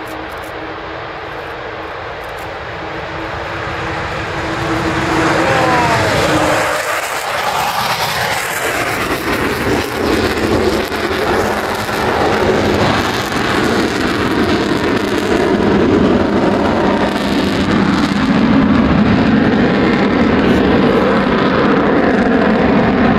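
Avro Vulcan XH558's four Rolls-Royce Olympus turbojets at take-off power, a loud jet roar with its distinctive moan. The sound swells about five seconds in and stays loud as the bomber climbs away.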